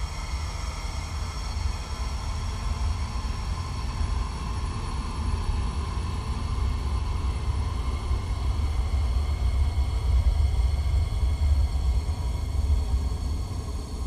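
Kyma Spectral Suite cross-spectral processing of a street-traffic field recording, played live: a dense, blurred wash of traffic noise over a heavy low rumble, with faint steady high tones. It swells about ten seconds in and eases off near the end.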